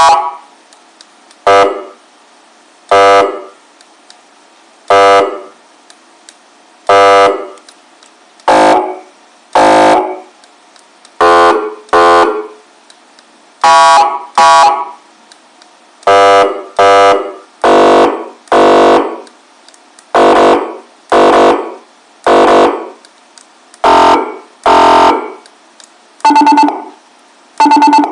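YHAAVALE X5 100W electronic siren sounding a series of short, loud horn blasts through its flat speaker, each about half a second long and one to two seconds apart at an uneven pace. The pitch shifts somewhat from blast to blast, and near the end two come as quick doubled pulses.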